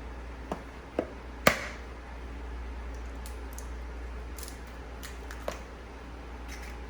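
A few short, sharp clicks and knocks, the loudest about a second and a half in, over a steady low hum.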